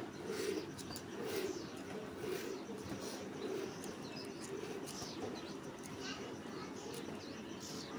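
Hand-milking a cow: milk squirting in short spurts into a small steel cup, about one spurt a second.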